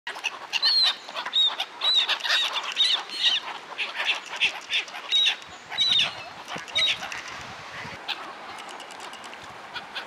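A flock of black-headed gulls calling over and over in short, high cries while they flap and splash on the water, squabbling over food. The calls come thick and fast for about seven seconds, then thin out.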